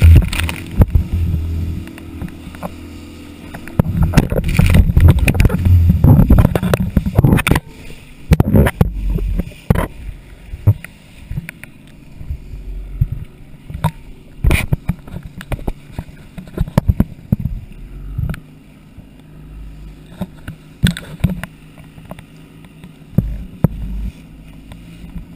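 Small speedboat's outboard motor running at speed, with water splashing against the hull and repeated knocks and rubbing from the camera being handled on its mount. The loudest, most jumbled stretches come in the first couple of seconds and again from about four to seven and a half seconds in; after that the motor hum carries on under scattered knocks.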